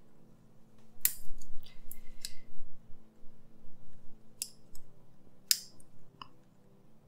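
Orthodontic pin cutter snipping twisted stainless-steel ligature wires at the brackets of braces: a series of sharp metallic snips, about four loud ones a second or so apart, with a few lighter clicks between.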